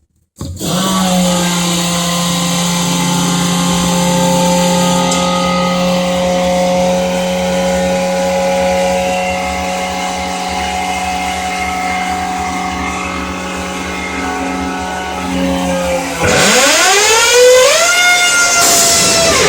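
Natural gas compressor's engine running steadily, starting abruptly about half a second in. Near the end its pitch dips, then climbs over a couple of seconds and settles higher as the engine speeds up.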